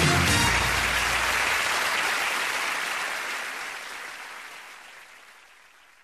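Studio audience applauding, fading out gradually. The last notes of the theme music end about half a second in.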